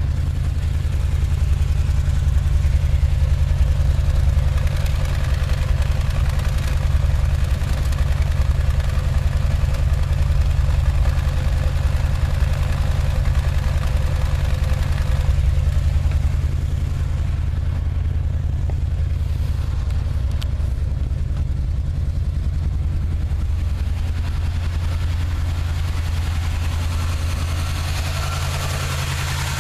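Chevy 350 small-block V8 in a 1979 Chevy pickup running steadily, a little louder for the first half and easing off slightly about halfway through. The engine has a nagging misfire that the owner cannot pin down; compression and plugs look sound.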